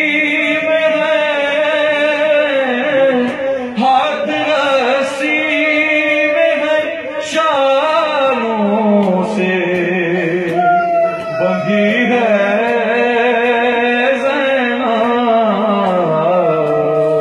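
A male reciter sings an Urdu noha (a mourning lament) into a microphone, in long held phrases whose notes waver and slide downward.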